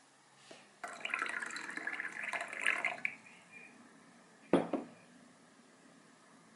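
Liquid poured into a glass for about two seconds, then a single sharp knock of something set down on a wooden table.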